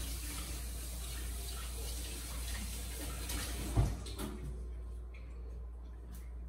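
Steady rush of running water, like a tap left on, that stops about four seconds in, just after a single knock. A low hum runs underneath.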